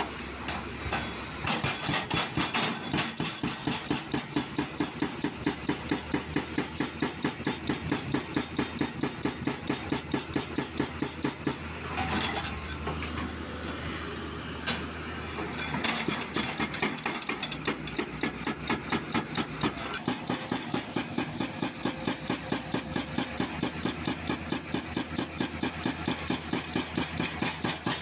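Hydraulic breaker hammer on a CAT 320C excavator pounding concrete, rapid blows about four a second over a steady diesel engine. The hammering stops for a few seconds near the middle while the engine keeps running, then starts again.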